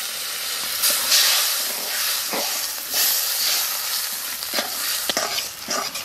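Spiced oil and fish heads sizzling hard in a metal wok right after water is poured in, with a steady high hiss. A metal spatula scrapes and stirs around the pan in several strokes, more often in the second half.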